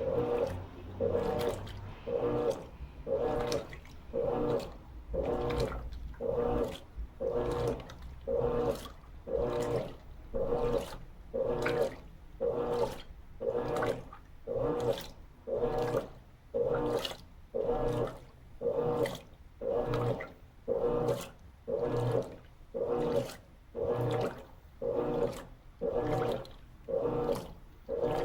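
Electrolux LT13B top-load washer in its initial agitation, the agitator turning back and forth and sloshing water through a load of sheets and towels at medium water level, about one swish a second in a steady rhythm.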